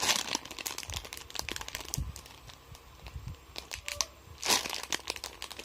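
Crinkling and rustling of thin plastic as a squishy toy is handled, with louder bursts of crinkling at the start and about four and a half seconds in.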